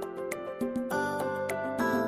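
Background music: held notes that change about every half second over a light, regular ticking beat.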